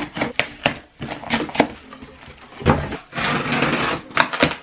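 Cardboard boxes being cut open with scissors: irregular snips and crackles of packing tape and cardboard, with a longer scraping, tearing rustle about three seconds in.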